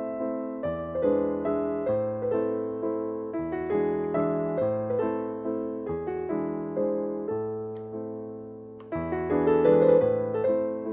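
Background piano music: notes struck one after another and fading, over bass notes that change every second or two, with a short lull near the end before it picks up again.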